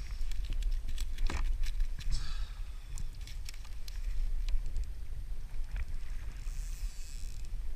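Wind rumbling on the microphone aboard a fishing kayak in choppy water, with scattered small knocks and clicks and a short splash-like hiss near the end.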